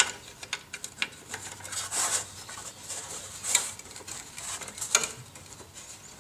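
Light clicks and scrapes of metal and plastic parts being handled as a Briggs and Stratton carburetor is fitted back onto the engine and its front bolt is started. The sharper clicks come about two, three and a half, and five seconds in.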